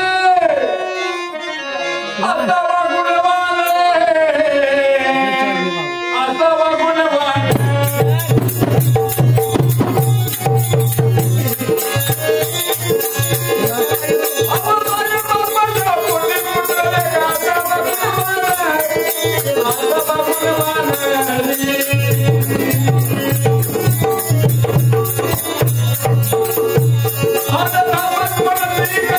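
Marathi folk song with a male singer holding a wavering melodic line over a harmonium for the first several seconds. About seven seconds in, a fast hand-drum rhythm with jingling percussion comes in over a steady harmonium drone, and the singing comes back near the end.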